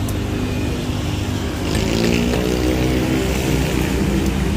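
A motor vehicle engine running close by on the street, its pitch climbing a little about two seconds in and then holding steady.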